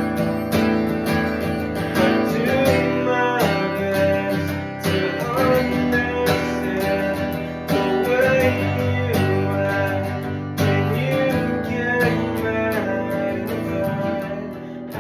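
Acoustic guitar strumming chords in a steady rhythm, with a melody line that bends up and down in pitch above the chords.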